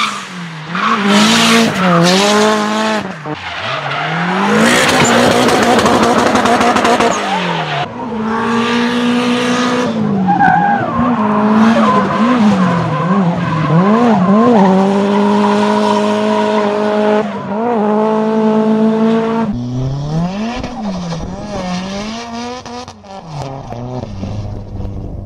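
Turbocharged Nissan SR20DET 2.0-litre four-cylinder engines revving hard up and down in drifting cars, with tyres screeching in bursts. The sound turns quieter and thinner near the end as a different car is heard.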